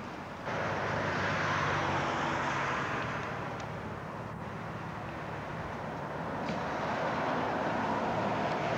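Road traffic going by: a steady rush of passing vehicles that starts abruptly about half a second in, is loudest over the next two seconds and swells again near the end.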